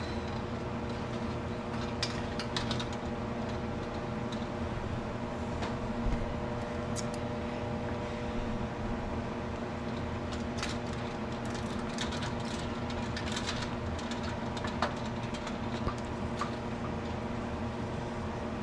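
Jars coming out of an enamelware boiling-water bath canner: a few scattered light clinks and clicks as the wire canning rack and the jar lifter knock against the glass jars and the pot. Under them runs a steady, even hum.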